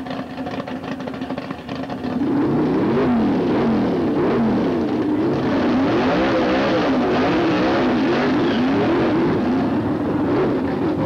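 A modified sedan's engine doing a burnout. It runs at a lower level until about two seconds in, then revs hard, its pitch swinging up and down over and over as the throttle is worked while the rear tyres spin.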